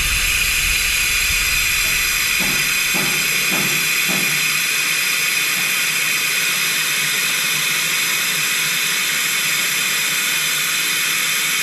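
Compressed-air vacuum oil extractor hissing steadily as its airline drives the suction that draws warm engine oil out of a small diesel engine's sump. A few faint low pulses come about two to four seconds in.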